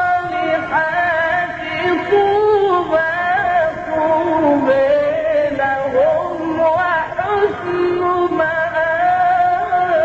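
A man's solo voice chanting a Quranic verse in melismatic Arabic style, drawing long held notes with winding ornaments that rise and fall in pitch.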